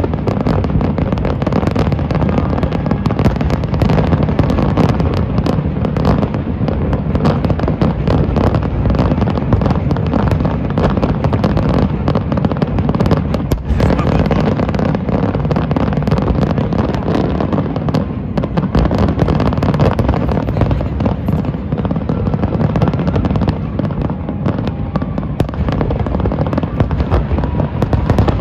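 Fireworks display: a dense, continuous barrage of shell bursts and crackle, the booms running together almost without a break.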